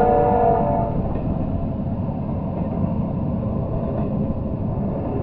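Double-stack intermodal freight train rolling past, a steady noise of wheels on rail. A pitched ringing tone fades out about a second in.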